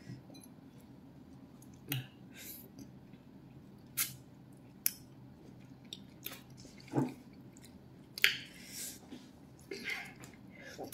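Quiet eating sounds close to the microphone while spicy ramen is eaten: scattered soft clicks and mouth sounds, with a longer hiss about eight seconds in.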